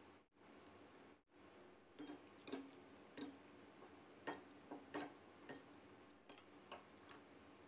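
Faint room tone, then from about two seconds in a string of light, irregular clinks: a metal soup ladle tapping against a glass bowl as hot soup is ladled in.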